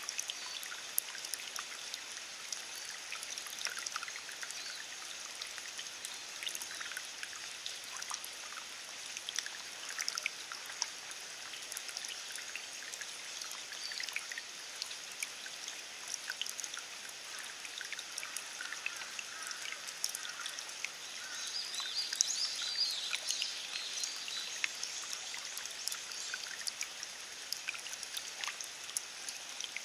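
Steady rain falling, a continuous hiss peppered with many small drops ticking on wet leaves and into puddle water. The ticking grows busier and louder for a few seconds about two-thirds of the way in.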